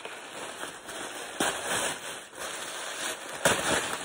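Thin tissue paper crinkling and rustling as a wrapped package is handled and unwrapped, with louder crackles about a second and a half in and again near the end.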